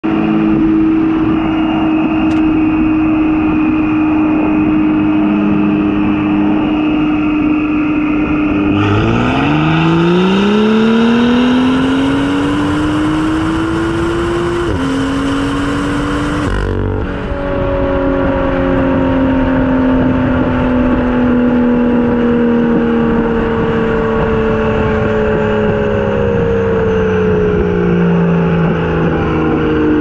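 Car driving at speed over road and wind noise with a steady tone, whose pitch climbs as the car accelerates about nine seconds in. About seventeen seconds in there is a brief break, then a new set of steady tones that slowly fall in pitch as the car coasts: the weird sound the car makes when the gas pedal is released.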